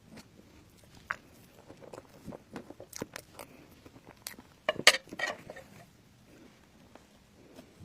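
Close-up eating sounds: a person biting and chewing, with scattered sharp crunches and clicks. The loudest burst of crunching comes about five seconds in.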